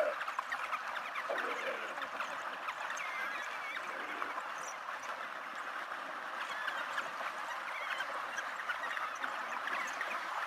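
A pack of African wild dogs twittering: a dense, steady chatter of short, high-pitched chirps and squeaks.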